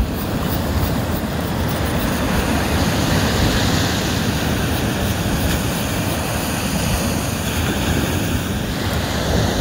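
Steady ocean surf washing on the beach, with wind rumbling on the microphone.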